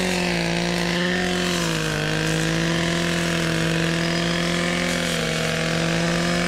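Gas-powered brush cutter engine running steadily at high speed, its pitch dipping briefly about two seconds in.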